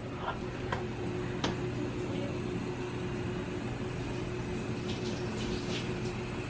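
Steady low household hum with a faint background hiss, broken by a few soft clicks and taps.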